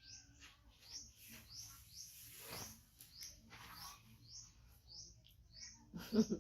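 A rapid series of short, high, upward-flicking chirps, about two or three a second, with a brief swishing rustle in the middle and a lower call just before the end.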